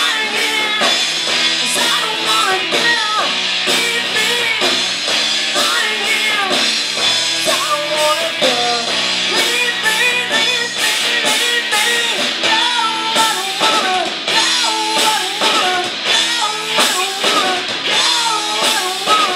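Live rock band playing: a woman's lead vocal over two electric guitars, bass guitar and a drum kit, with steady drum hits.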